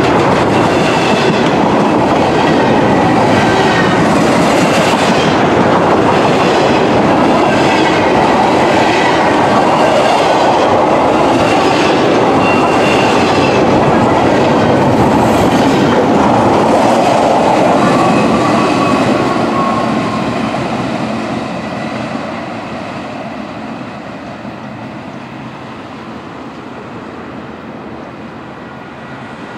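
Empty intermodal well cars rolling past close by: a steady rumble and clatter of steel wheels on rail, with a faint high squeal from the wheels. About twenty seconds in, it drops to a quieter rolling.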